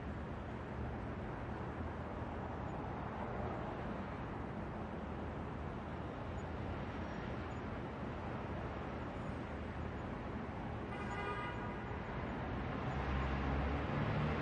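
New York subway station ambience: a steady low rumble and hiss. A brief pitched tone sounds about eleven seconds in, and the rumble swells near the end.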